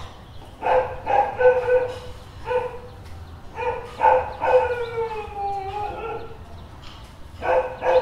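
Dog barking in bursts: a cluster of barks about a second in, more around the middle and one near the end, each trailing into a drawn-out howl that falls in pitch.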